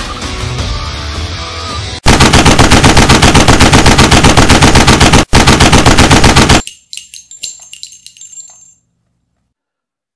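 Rapid automatic gunfire comes in suddenly about two seconds in, after the end of loud background music. It fires about seven shots a second for roughly four and a half seconds, with one brief break, then cuts off sharply and leaves a short, fading metallic ringing.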